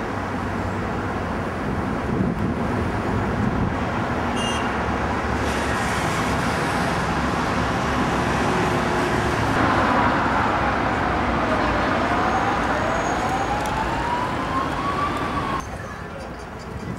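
Road traffic running steadily. About ten seconds in, a siren wails, its pitch sliding down and then back up once. The sound cuts off suddenly near the end.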